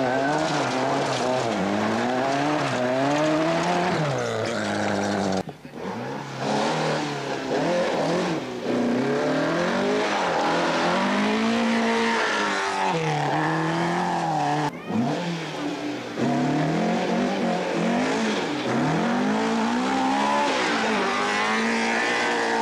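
Rally car engines revving hard on a gravel stage, the pitch climbing and dropping with each gear change. The sound breaks off abruptly a few times, where it switches from one car to another.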